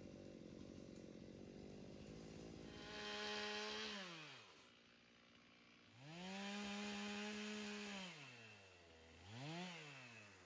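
Two-stroke chainsaw running steadily, then revved to full throttle three times, twice held for a second or two and once as a short blip near the end, each time dropping back to idle.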